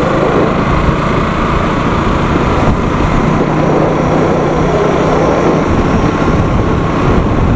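Motorcycle on the move: steady wind rushing over the camera's built-in microphone, with the bike's engine running evenly underneath.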